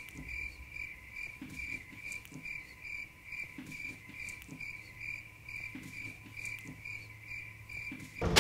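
Crickets chirping as an edited-in 'awkward silence' sound effect: an even, high-pitched chirping at about three chirps a second that stops abruptly near the end.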